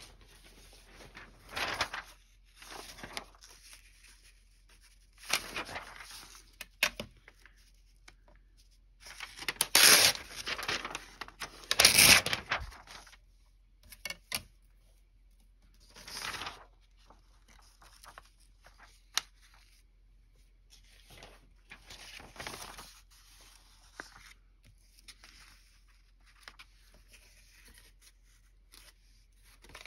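Sheets of paper and card being handled and straightened, rustling in separate bursts, the two loudest about ten and twelve seconds in.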